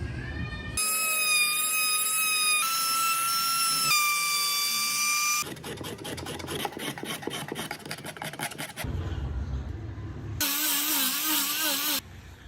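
Power tools working wood in a string of short cuts: a steady high-pitched motor whine that shifts pitch in steps, then a rough grinding or sanding noise with rapid ticking. A wavering whine follows near the end.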